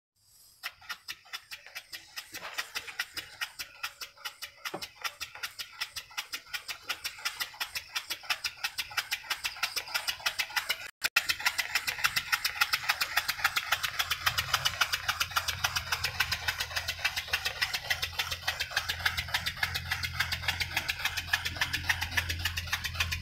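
Homemade single-cylinder steam engine with a saw-blade flywheel running, its piston beating in a sharp regular rhythm that starts at about three beats a second and speeds up as it gathers pace. In the second half the beats come fast and steady, with a low hum underneath.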